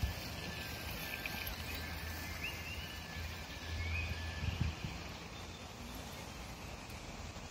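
Low wind rumble on the microphone, swelling about four seconds in, with two short high bird chirps around the middle.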